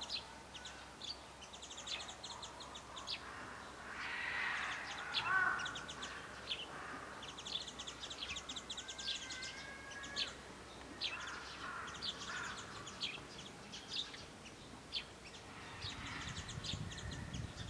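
A crow cawing, most clearly about five seconds in, with small birds chirping and many short crisp ticks throughout.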